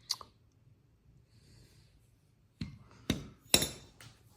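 A sharp click, then, about two and a half seconds later, four sharp knocks roughly half a second apart, the third the loudest.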